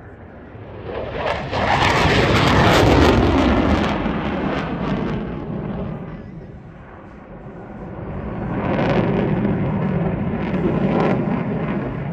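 F-15 Eagle fighter jet's twin turbofan engines passing low, the jet noise swelling about a second in and peaking around two to three seconds with its pitch dropping as it goes by. It fades, then swells again in the second half as the jet flies overhead.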